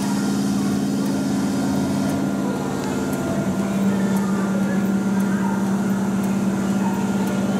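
Keihan electric train giving a steady low electrical hum, which shifts slightly in pitch about three seconds in.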